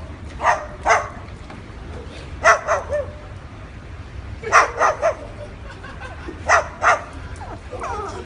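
White cockatoo barking like a dog, in short barks grouped in twos and threes about every two seconds.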